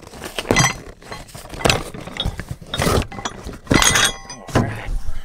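Metal sway bar kit parts (brackets, end links and a bag of bolts) clattering and clinking as they are handled in their cardboard box. A series of sharp knocks, some ringing briefly.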